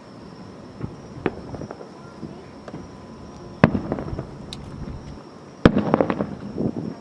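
Aerial fireworks shells bursting: a few small pops, then two loud booms about two seconds apart, the second followed by a spell of smaller pops.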